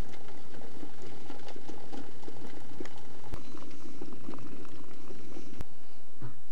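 Hot water from a samovar tap running into a glass teapot of loose herbal tea, bubbling and fizzing, with two sharp clicks. The running water stops near the end.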